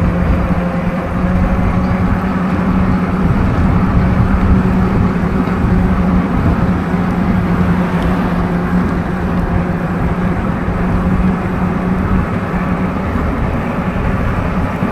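Electric bike motor whining at one steady pitch under load on a long steep climb, over wind and road noise on the microphone.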